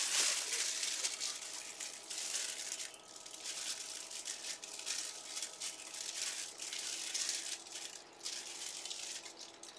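Rustling, rattling handling noise in uneven bursts as a football helmet is turned and handled in the hands, loudest at the start.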